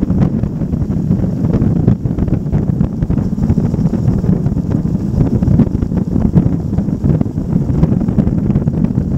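Steady wind rumble buffeting the microphone of a camera mounted low on a motorcycle moving at road speed. No distinct engine note stands out above the rumble.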